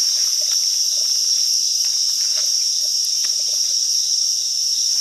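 Steady high-pitched chorus of forest insects, with faint clicks and rustles of a mushroom being cut and picked from leaf litter with a knife.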